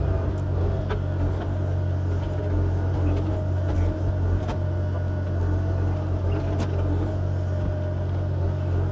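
Excavator's diesel engine running steadily with a deep hum, with scattered sharp clicks and knocks, while it spreads crusher run gravel.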